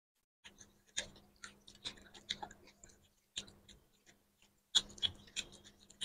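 Soft, scattered mouth sounds of people eating a rice and curry meal: short wet clicks and smacks of chewing, about a dozen spread unevenly, with a faint steady hum underneath.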